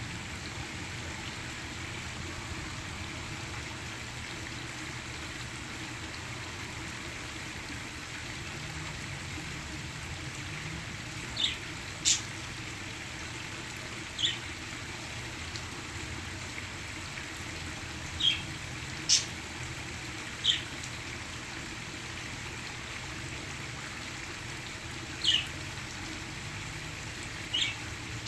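Steady rush of falling water from a waterfall, with pet parakeets giving about eight short, high chirps scattered through the second half.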